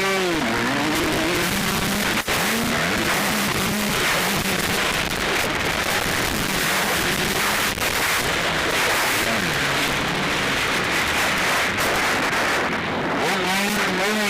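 Motocross bike engines revving up and falling away again and again as the bikes race past, under a loud, harsh noise that covers much of the sound.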